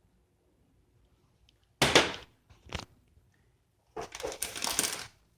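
Seasoning being dispensed into the pot with a crunchy, gritty sound: a short burst about two seconds in, a brief second one, then a longer run about four seconds in.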